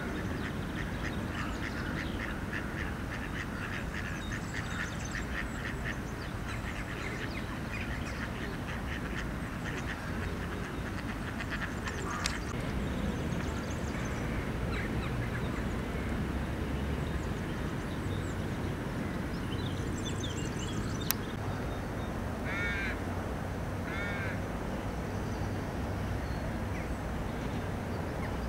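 Mallard ducks quacking in runs of short calls over a steady low rumble.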